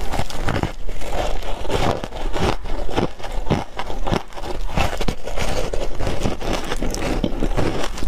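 Shaved ice dusted with matcha powder being bitten and chewed: a loud, dense run of irregular, crisp crunches.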